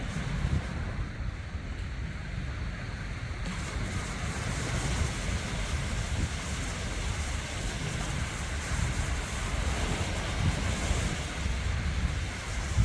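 Surf washing onto a beach, heard as a steady hiss, with wind buffeting the microphone in a gusty low rumble.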